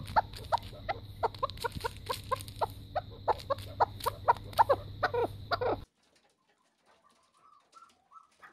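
Chukar partridge calling in a fast run of short clucking notes, about three to four a second, that stops abruptly about six seconds in; a few faint calls follow near the end.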